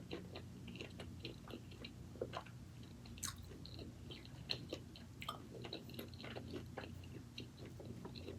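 A person chewing a mouthful of food close to the microphone, with soft, irregular wet clicks and smacks. A steady low hum runs underneath.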